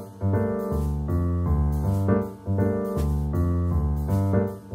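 Background piano music: chords and a bass line with notes changing every fraction of a second, pausing briefly between phrases.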